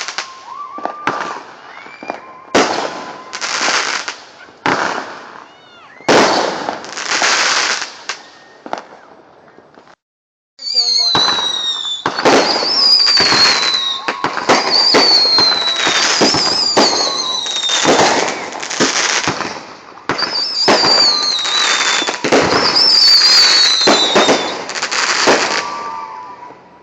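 Consumer fireworks going off: a rapid string of sharp bangs and crackles. The sound breaks off briefly about ten seconds in, then a denser run of bangs follows with several falling whistles.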